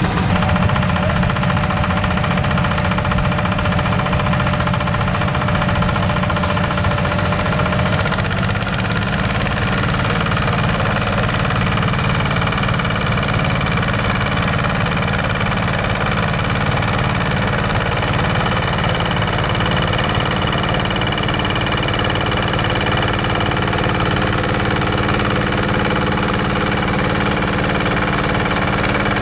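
Two-wheel walking tractor's single-cylinder diesel engine running steadily while it drives a rotary tiller through dry soil. The engine note shifts about eight seconds in, then holds steady.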